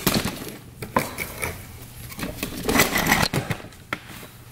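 Gloved hands handling a two-stroke ATV's carburetor slide, needle and spring: irregular clicks, small metal knocks and scraping and rustling noises, over a faint low steady hum.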